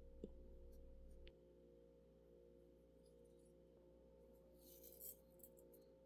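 Near silence: a faint steady hum of room tone, with a brief soft hiss about five seconds in.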